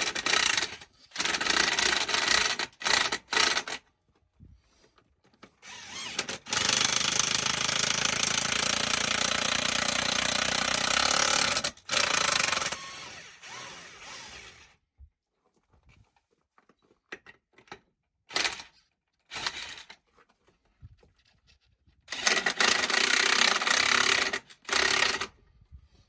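A power tool running in bursts as it drives a bead breaker around a tractor tire to break the bead off the rim: a few short runs, one long run of about six seconds in the middle, and another burst of about three seconds near the end.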